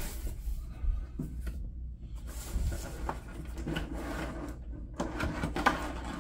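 Cardboard box and clear plastic clamshell packaging being handled: rustling and scraping with a few soft knocks as a plastic tray of model train cars is lifted out of the box.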